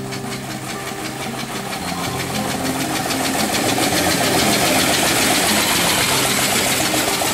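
Veteran car engine running with an even ticking beat, getting louder over several seconds and then cutting off abruptly, with background music underneath.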